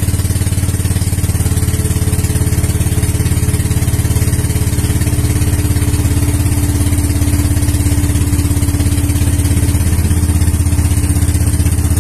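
Outrigger boat's engine running steadily under way, an even rapid chugging.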